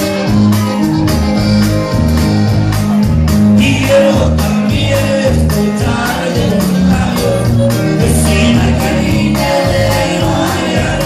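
Norteño band playing live: button accordion, bajo sexto, electric bass and drum kit on a steady beat, with a male lead singer singing over them.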